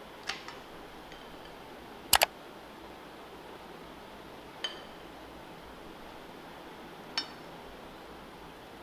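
A spoon clinking against a ceramic bowl a few times, each a short clink with a brief high ring. A sharp double knock about two seconds in is the loudest sound.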